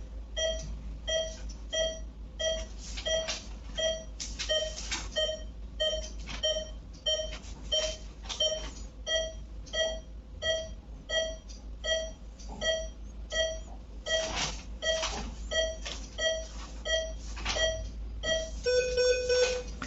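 Patient monitor's pulse-oximeter beeping steadily in time with the heartbeat: short, identical high beeps at one pitch, about two a second. Just before the end a longer, lower tone sounds for under a second, with a few soft handling rustles along the way.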